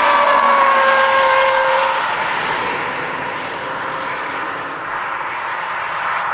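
Camouflaged Audi prototype sedan passing at speed, its engine note falling slightly in pitch over the first two seconds, then fading to a steadier, quieter noise as the car drives away.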